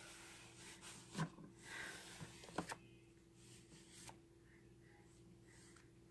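Near silence: a steady low room hum with a few faint taps and short rustles in the first few seconds, the sound of hands handling paper and crafting tools on a table.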